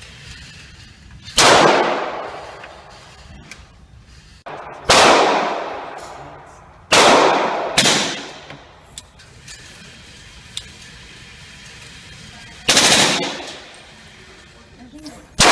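Gunshots: six loud shots at irregular intervals, two of them close together about halfway through, each ringing out with a long echoing decay.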